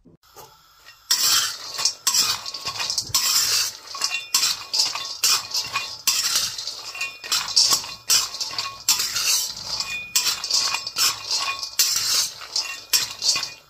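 Mixed almonds, cashews and pistachios rattling in a dry metal kadai as a spatula stirs and scrapes them, dry-roasting with no oil. The dense, irregular clatter starts about a second in.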